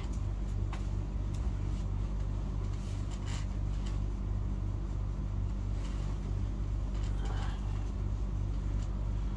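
A steady low hum that pulses evenly, from a machine or appliance running, with a few faint rustles and soft knocks as a person shifts about on a mattress.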